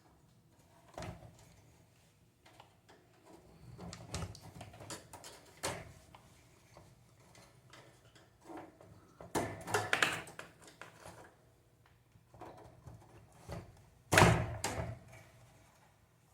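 Irregular clicks, taps and knocks of parts being handled and fitted as an electric fan is reassembled, with a cluster of knocks past the middle and the loudest knock near the end.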